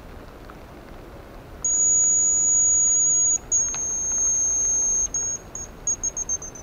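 Hazel grouse decoy whistle (манок) blown close by, imitating the cock's song. Two long, very high whistles, the second falling slightly, are followed by a quick run of short notes that step down in pitch.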